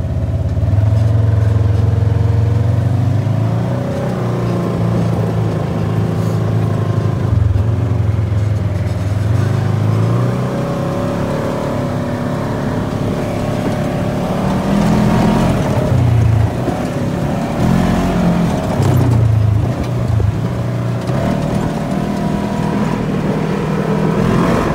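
Side-by-side off-road vehicle's engine running under way on a dirt trail, its pitch rising and falling again and again with the throttle.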